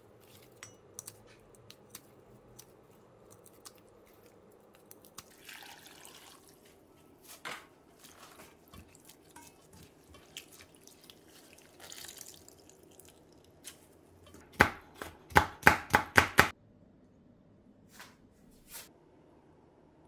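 Soaked dried pollack shreds being squeezed by hand in a stainless steel bowl, with water dripping and soft clicks. About three-quarters of the way through comes a quick run of about eight loud knocks within two seconds.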